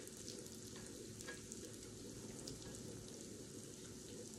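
Pancake batter with bacon bits sizzling faintly on a hot electric griddle: a steady hiss with occasional light crackles.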